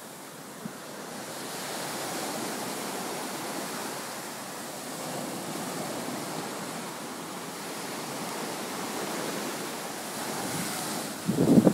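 Ocean surf breaking on a sandy beach, a steady wash of waves that swells and eases. A brief loud rumble on the microphone near the end.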